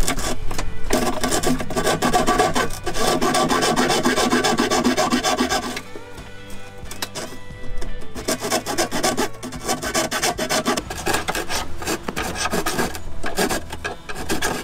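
A hand-held fine-tooth hacksaw blade sawing slowly through a fiberglass boat dash in quick back-and-forth strokes. It pauses about six seconds in, then starts sawing again.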